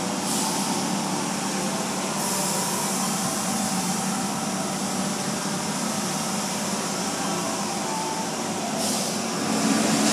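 Automatic car wash running, heard from inside the car's cabin: water spraying against the windows and wash brushes working over the car, with a steady hiss and a low machine hum that grows a little louder near the end.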